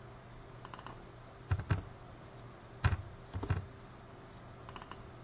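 Computer keyboard keystrokes as coordinate numbers are typed into cells, coming in small clusters of a few taps with pauses between them.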